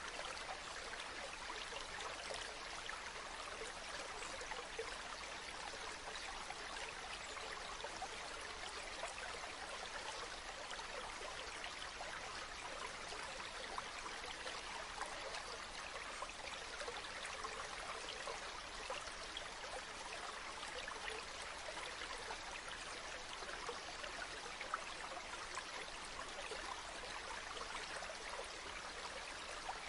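River water flowing over stones, a steady, even babble and rush of water.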